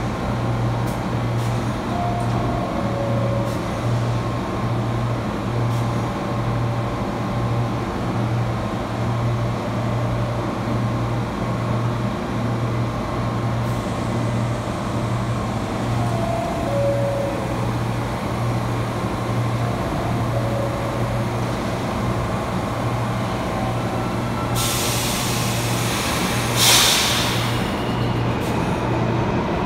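R46 subway train standing at the platform, its equipment giving a steady low hum that pulses about twice a second. Near the end a hiss of air starts, with a sharp loud blast of air from the brakes.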